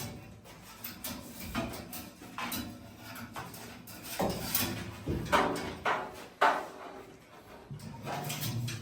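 Irregular knocks, clicks and clatter from bamboo poles and hanging sausages being handled.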